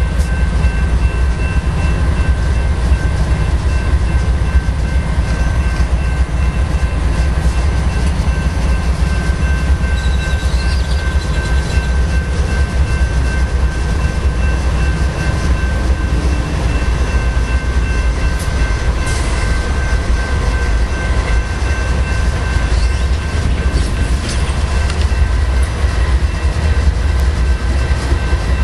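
BNSF diesel-electric freight locomotives passing close as they pull a departing train, with a heavy, steady engine rumble and a thin, steady high whine over it.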